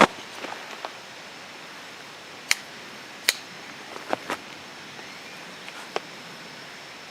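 A handful of short, sharp clicks and knocks at irregular intervals, the loudest right at the start, over a steady background hiss.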